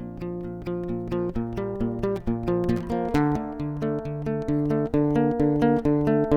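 Background music: a plucked acoustic guitar playing a steady, rhythmic pattern of notes.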